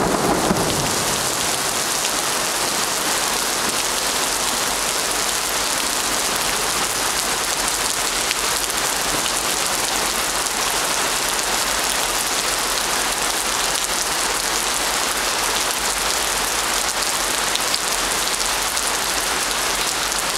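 Heavy rain pouring steadily onto wet paving stones, a dense even hiss with no let-up. A brief low rumble swells right at the start.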